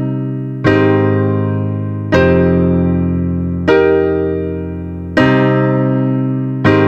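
Background music: slow piano chords, a new chord struck about every one and a half seconds and left to ring and fade.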